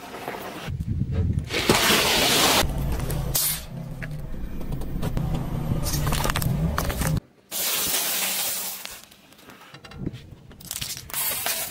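A car's engine running and its tyre rolling onto and crushing small objects on asphalt, in short abruptly cut shots, with a loud burst of hiss about two seconds in.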